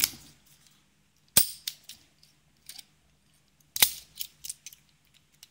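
Abus 85/50 brass padlock worked with its key: two sharp metallic snaps, about a second and a half in and again near four seconds, as the shackle is released and then pushed home to lock, with lighter clicks of key and metal around them.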